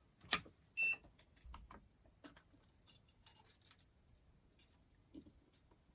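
Small clicks, taps and rustles of hands handling wires and parts inside the hairdryer being rewired, with a sharp click just after the start, a brief high squeak just under a second in, and a soft knock near the end.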